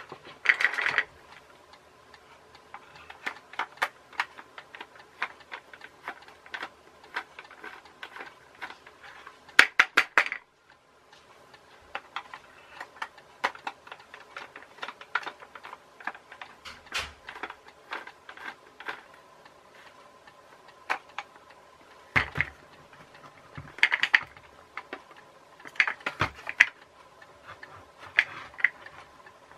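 Hard plastic parts of a Funrise Gazillion Bump and Go Bubble Car clicking, knocking and rattling as they are handled and taken apart, with a screwdriver working its small screws. Irregular sharp clicks and taps, with a few louder clattering clusters.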